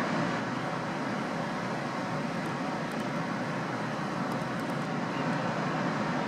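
White-water rapids on the River Nile rushing: a steady, unbroken roar of water.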